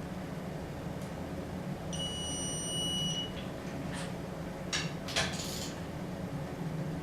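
A steady electronic beep lasting about a second and a half, followed by a few short clicks and rattles, over a steady low hum.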